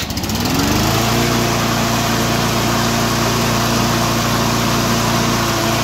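Husqvarna push mower's small engine started on its battery-powered electric starter. It catches straight away, rises in speed over about the first second and then runs steadily.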